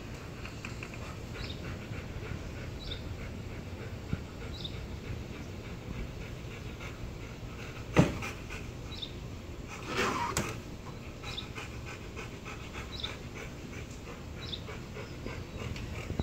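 Siberian husky panting, with one sharp knock about eight seconds in and a short, louder sound about two seconds later. Faint, short high chirps repeat about every second and a half.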